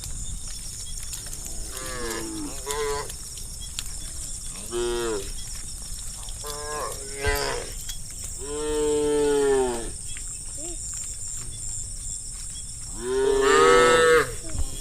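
Cows in a herd mooing, about seven calls one after another, some short and faint, with two longer, louder moos in the second half.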